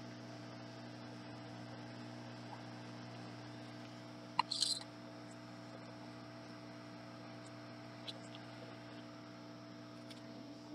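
Low, steady electrical mains hum with several overtones. About four and a half seconds in there is a sharp click followed by a brief high hiss, and a few faint ticks near the end.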